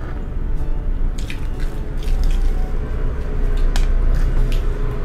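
Close-miked eating: two people biting into and chewing pizza and fried chicken, with sharp mouth clicks scattered through. A steady low hum runs underneath.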